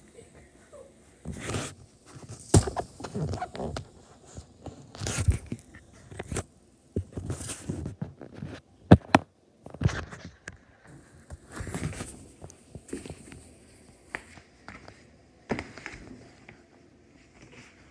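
Irregular rustling, scraping and sharp knocks of a phone being handled and moved while filming, with the loudest knocks about two and a half seconds and nine seconds in.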